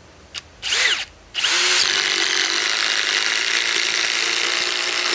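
Ridgid subcompact impact driver driving a 6-inch lag-type screw into wood: a short trigger blip under a second in, then steady hammering for about four seconds as the screw goes down.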